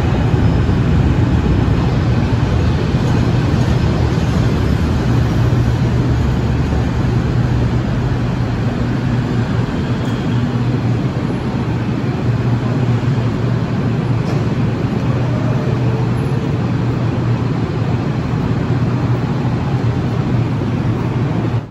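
Steady rumble and low hum of Kelana Jaya Line light metro trains (Bombardier Innovia ART) at a station, with busy station noise mixed in.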